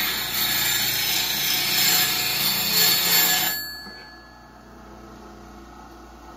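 Steel bowl gouge being ground on a spinning 180-grit diamond wheel on a bench grinder: a loud, even grinding hiss as the primary bevel is re-ground. It cuts off about three and a half seconds in as the gouge is lifted away, leaving the grinder's quieter running hum.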